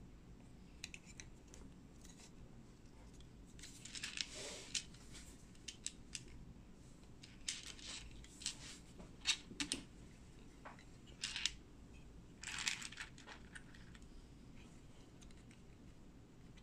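Small plastic building bricks handled and pressed together by hand, with pieces picked from a loose pile: scattered light clicks and brief rattles, busiest in the middle stretch.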